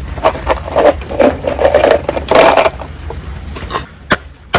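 Wood scraping and rubbing as a wooden piece is forced into place, in several rough strokes, followed by two sharp knocks near the end.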